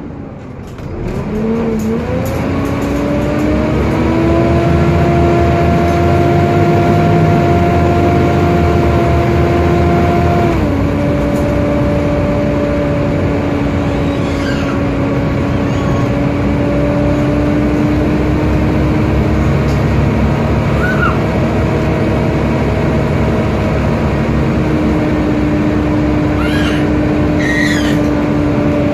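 Volvo B7TL double-decker bus's diesel engine and loud cooling fan heard from the upper deck as the bus pulls away. A whine rises in pitch over the first few seconds and holds, drops suddenly about ten seconds in as the gearbox changes up, then runs steady.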